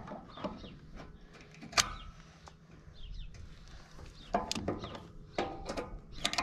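Pliers clicking against a feeder wagon's steel wheel hub as the outer bearing and washer are worked loose. There is one sharp click about two seconds in, then a run of clicks in the second half.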